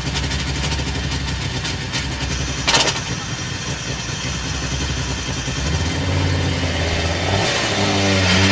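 Rally car engine running, with one short sharp bang a little under three seconds in. From about six seconds the engine note turns clearer and steady, then wavers up and down near the end as the revs move.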